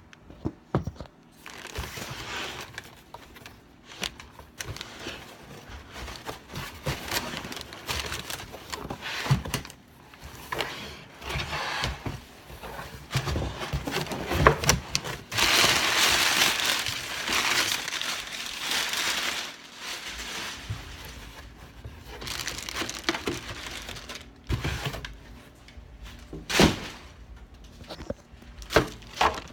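Cardboard box being opened by hand and its packing crumpled and rustled, with scattered knocks and crackles. A longer stretch of loud continuous rustling comes about halfway through, and there are a few sharp knocks near the end.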